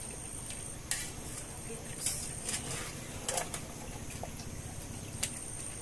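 A wire-mesh skimmer scraping and clinking against a steel pot as it turns raw marinated chicken pieces, about five short strokes spread out, over a steady low background rumble.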